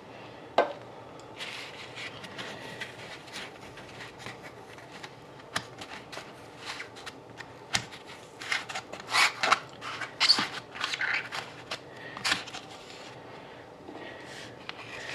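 Trading cards and their packaging being handled by hand: irregular rustling, sliding and light clicks, busiest from about eight to thirteen seconds in.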